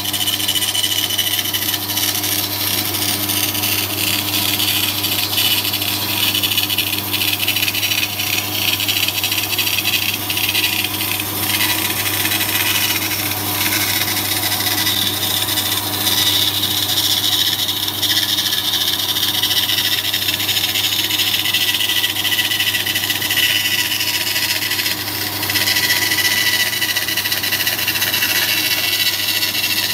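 Band saw running with a steady motor hum, its blade cutting a curved line through a wooden board with a continuous hiss of the cut.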